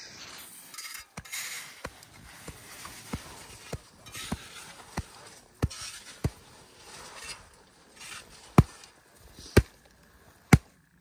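An avalanche shovel blade laid on top of an isolated snow column, tapped by hand in a compression test. About ten light taps come roughly every two-thirds of a second, then from about eight seconds in the taps are louder and about one a second.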